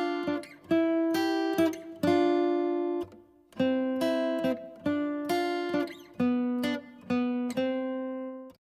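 Intro music on acoustic guitar: plucked chords struck about twice a second, with a short pause near three seconds in. It stops abruptly just before the end.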